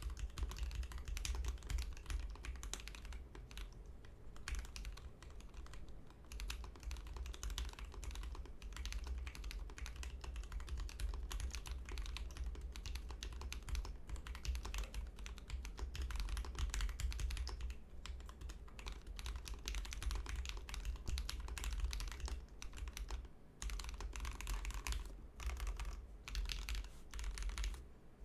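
Typing on a custom 60% mechanical keyboard with lubed Tecsee Jadeite switches, an FR4 plate, a stacked acrylic case and PBT keycaps, set on a thick desk mat. The keystrokes come in a dense stream with a few short pauses, over a steady low hum.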